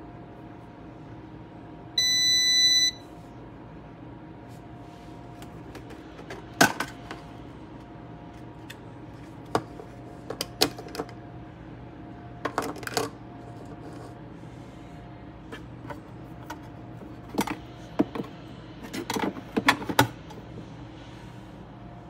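An espresso machine's electronic beep: one steady high tone lasting about a second. It is followed by scattered sharp plastic clicks and clatters as the single-serve pod holder is taken apart and handled, over a faint steady hum.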